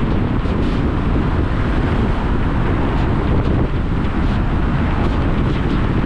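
Steady wind rushing over the microphone of a moving car's camera, with road and tyre noise from driving at speed underneath.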